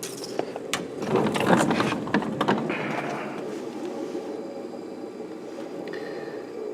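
Knocks, clicks and rattles from a refrigerator cabinet being handled, then a steady low hum.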